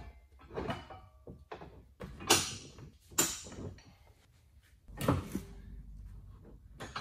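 Steel tow bar box section knocking and scraping against the car's underside brackets as it is positioned and bolted up on a transmission jack: a few separate clunks and scrapes, the loudest two near the middle, and a dull thud about five seconds in.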